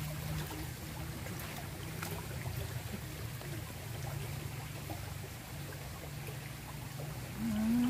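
Small, shallow stream flowing and rippling over rocks, a steady babble of water. Near the end a man gives a short rising hum.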